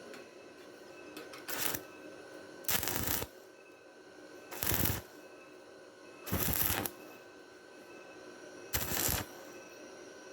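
Stick-welding arc crackling in five short bursts of about half a second each, with brief pauses between them: short stitch welds on thin galvanized square tubing.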